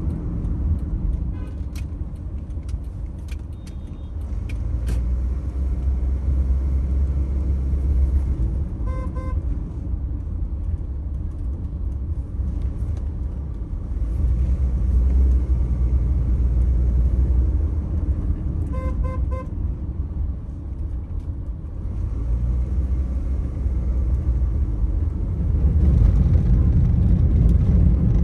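Road traffic with a steady engine and tyre rumble, and short car horn toots: three quick honks about nine seconds in and three more about nineteen seconds in.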